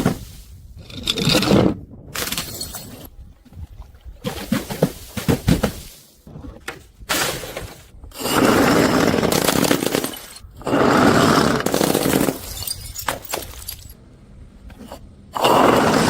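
Objects being broken and crushed: several sharp cracks in the first six seconds, then three long crunching stretches of one and a half to two seconds each.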